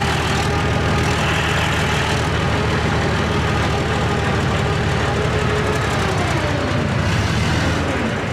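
Caterpillar 830M wheel tractor's diesel engine running with a deep, steady rumble; its pitch sags slightly in the last couple of seconds.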